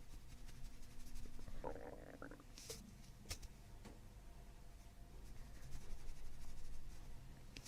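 Stomach gurgling and rumbling under hands-on abdominal work, with a gurgling burst about two seconds in and a few faint clicks.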